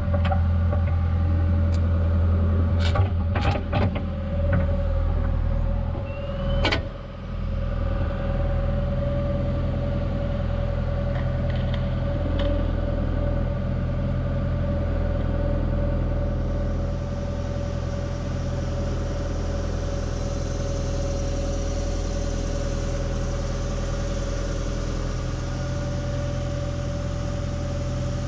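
Excavator's diesel engine running steadily with a thin, even whine, while a few sharp clicks and knocks come in the first few seconds, the loudest about seven seconds in, as the bucket works a spatula at the skillet.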